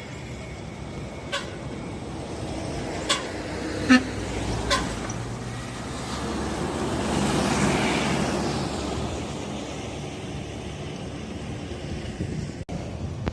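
Roadside traffic: a vehicle passes close by, its noise swelling and fading about halfway through, with a few short sharp sounds in the first five seconds.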